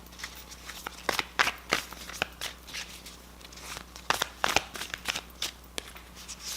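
A deck of tarot cards being shuffled by hand: irregular sharp flicks and taps of card stock, some louder than others, over a faint low steady hum.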